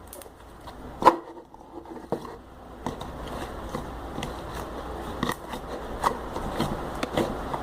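Homemade glue slime being worked by hand or in its container: irregular sticky squelches and small clicks, with one louder pop about a second in.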